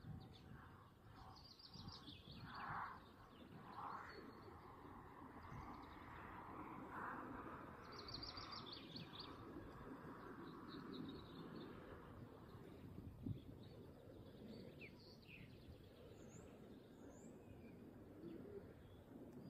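Faint birdsong: a small songbird's quick high trill, about a second long, heard twice, near the start and about eight seconds in, among scattered short chirps, over a faint steady outdoor background noise.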